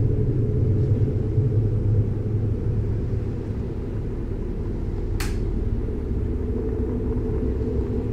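A low, steady rumbling drone of a dark film soundtrack, with one short, sharp swish a little past the middle.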